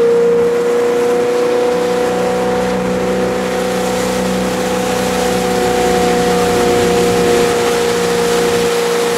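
Tow boat's engine running steadily at speed with a constant whine, over the rush of wind and water.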